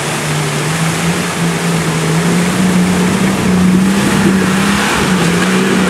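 Nissan Patrol 4WD's engine pulling steadily under load as it wades through a fast-flowing river, its note rising slightly and growing louder as it nears. The rush of the rapids and the water pushed up by the vehicle runs underneath.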